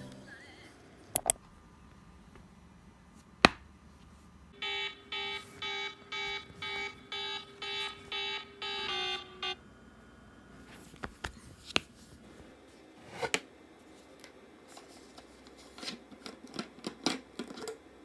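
Electronic wake-up alarm beeping about twice a second for about five seconds, then stopping. A single sharp click comes before it, and scattered taps and handling knocks follow.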